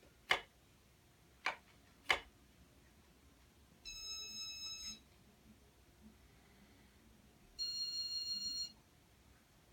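A wall light switch clicked three times within about two seconds, flicking power to a 1985 Casablanca Panama ceiling fan's Intellitouch control to step it to its next speed. Two electronic beeps follow, each about a second long and a few seconds apart.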